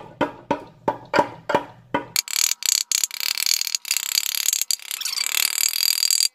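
Small rubber mallet tapping new spark plug tube seals into a metal valve cover: a run of knocks, several a second, with the cover ringing after each. About two seconds in, the knocks give way to a bright hiss with fast light clicks.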